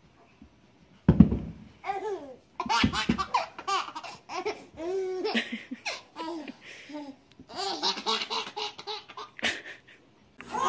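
A baby laughing in repeated bursts of giggles and belly laughs, starting about a second in.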